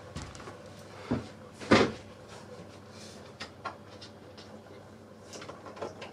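A boat cabin's wooden door to the bathroom being opened: a knock about a second in and a louder knock of the door and latch just before two seconds, then a few lighter clicks and taps.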